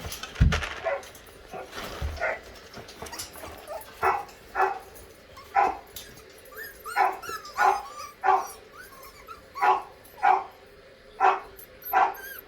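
Dog barking in short, separate barks, about one every half second to a second, with a low thump about half a second in.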